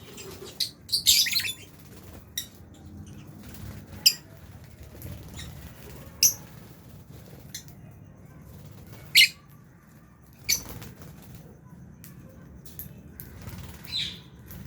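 Lovebirds in an aviary giving short, shrill chirps, several close together near the start and then single ones every second or few, over a faint low hum.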